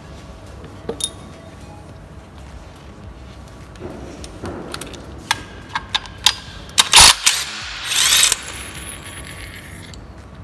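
Hand tools and metal parts clicking and clanking during work on a car, with a run of sharp clicks that builds to the loudest clank about seven seconds in, followed by a short rasping burst.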